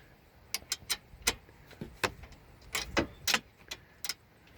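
Irregular sharp metallic clicks and clinks of hand tools working loose the A/C hose fitting at the car's condenser.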